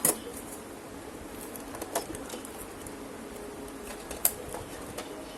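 A few sharp clicks from handling an HP 680 ink cartridge and its packaging while its sealing tape is peeled off, about two and four seconds in, over a faint steady hum.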